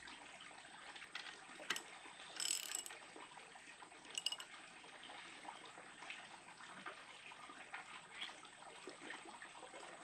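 Faint handling of metal tools and parts: scattered clicks and knocks over a steady hiss, with two short metallic rings about two and a half and four seconds in.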